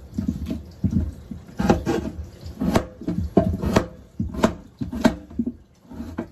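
Kitchen knife cutting raw potatoes into chunks on a cutting board: a series of irregular knocks as the blade goes through the potato and strikes the board.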